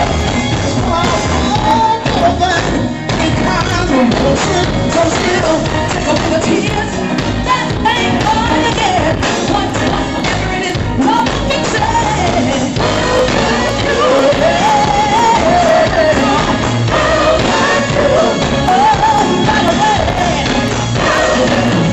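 Live soul band playing while a male and female vocal duo sing over it through the PA, the voices sliding and wavering in long held notes.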